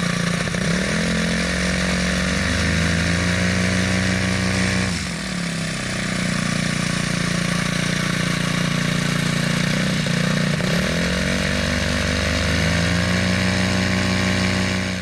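Homemade paramotor's Predator 212 single-cylinder four-stroke engine running hard. Its pitch sags and climbs back as the throttle is eased and reopened, most deeply about a third of the way in and again about two-thirds through.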